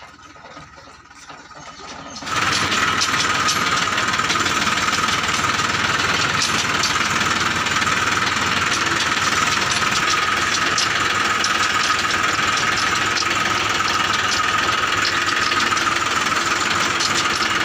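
Eicher 333 tractor's diesel engine running steadily while towing a trolley, heard close up beside the exhaust stack. It is quieter for the first couple of seconds, then comes in suddenly loud and stays even.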